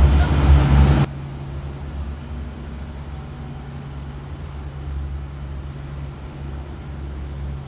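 Small boat's engine running steadily, a low drone. About a second in it drops abruptly to a quieter level and stays even.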